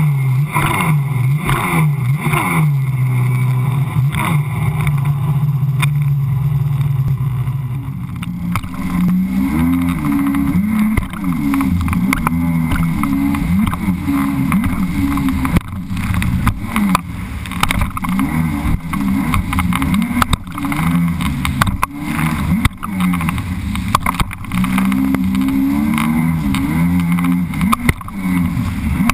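Sea-Doo personal watercraft engine running at speed. Its drone is steady for the first several seconds, then its pitch rises and falls again and again as the craft bounces over the chop. Water spray and wind buffet the camera microphone throughout.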